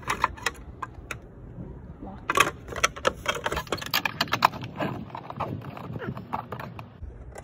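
Irregular plastic clicks and taps as a car's side-mirror cover is pressed and snapped back onto the mirror housing over a newly fitted turn-signal lamp. The sharpest clicks come a little over two seconds in and again around four and a half seconds in.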